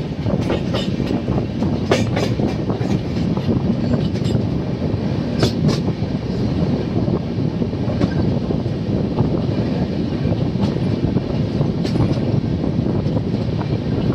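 Indian Railways passenger train running steadily on a curve, heard from aboard: a loud, continuous rumble of wheels on track with scattered, irregular clicks as the wheels pass over rail joints.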